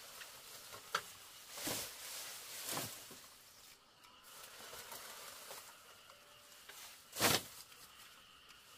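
Pigs giving a few short, breathy grunts, the loudest one near the end, with a sharp click about a second in.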